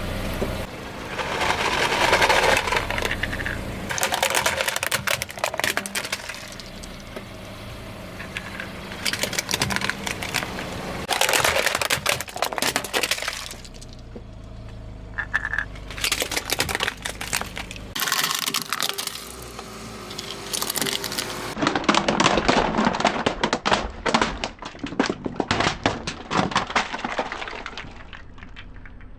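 Brittle objects crunching and cracking under a car's tyres, in a series of bursts of crackling.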